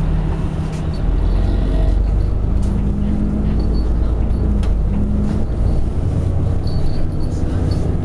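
Inside a Hino Blue Ribbon City non-step city bus: the diesel engine and drivetrain rumble low and steady, with a few light clicks and rattles.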